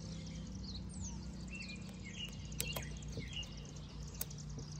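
Outdoor ambience: small birds chirping over a steady low hum, with a few light clicks from the piston and its rings being handled, about two and a half and four seconds in.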